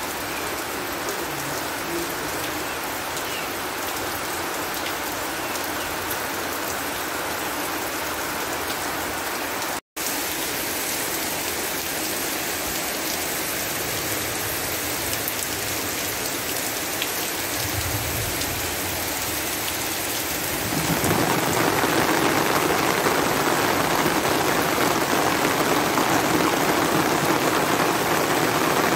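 Heavy rain falling steadily on the ground and surroundings, an even hiss of drops. It cuts out for an instant about ten seconds in, and about twenty seconds in it grows louder and fuller.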